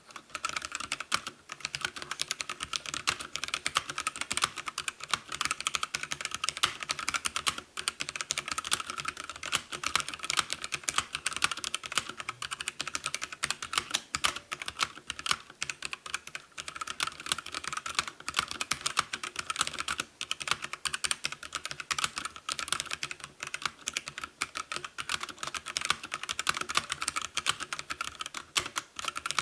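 Continuous fast typing on a Havit mechanical keyboard with linear red switches: a dense, even stream of key clacks, very quiet, with brief pauses about eight and twenty seconds in.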